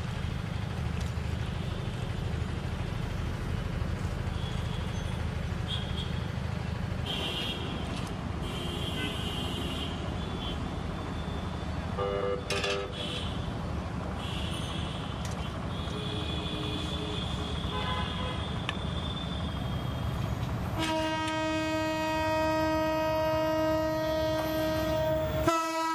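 Steady low background noise with small scattered sounds. About twenty seconds in, a train horn starts and sounds long and steady for about five seconds, with a brief break near the end.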